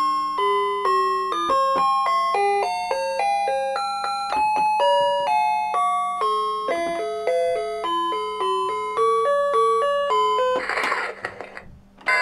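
An electronic tune from a Learning Journey Smart Learning Center alphabet toy's small speaker, played as a quick run of bright beeping notes. About ten and a half seconds in, the tune gives way to a short burst of noisy sound effect.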